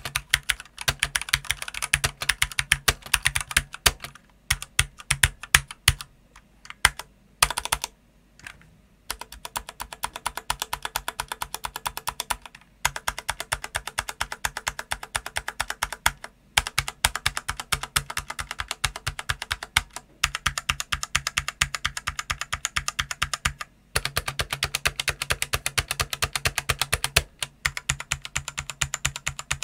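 Stock Eyooso K-620 mechanical keyboard with Outemu Red linear switches and stock PBT keycaps, typed on in fast bursts of key clacks broken by brief pauses. Between about four and nine seconds in the keys are pressed more slowly, one at a time.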